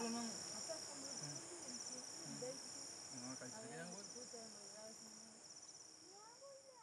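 Night insects chirring in steady, pulsing high trills, with faint murmured voices beneath; the whole sound fades out gradually toward the end.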